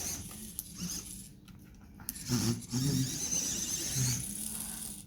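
Homemade robot vacuum cleaner running: a whir from its small motors and fan, with a few sharp clicks.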